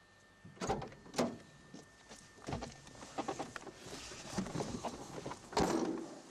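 Someone getting into a car: sharp knocks and thumps from the car door and the driver settling into the seat, with rustling and handling in between. Two knocks come close together about a second in, and the heaviest thump comes near the end.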